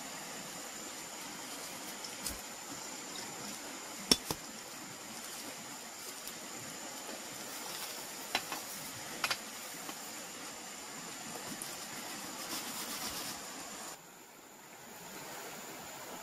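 A knife blade clinking sharply against a thin metal tray a few times as roasted grasshoppers are scraped off it, over the steady rush of river water.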